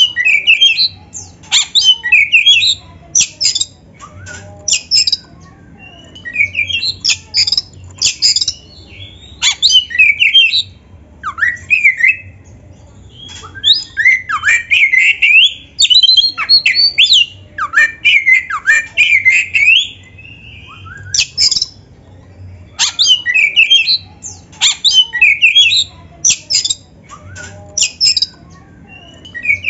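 Oriental magpie-robin (kacer) singing loudly in its excited, aggressive fighting-mode song, rapid phrases of sweeping whistled notes mixed with harsh squawking notes. The bird sings in bursts with brief pauses between them.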